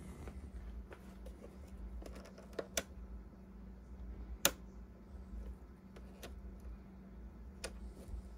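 Sharp plastic clicks from the counter-light switch of a GE Spacemaker under-cabinet radio being worked by hand. There are five clicks, some in quick pairs, the loudest about halfway through, over a low steady hum.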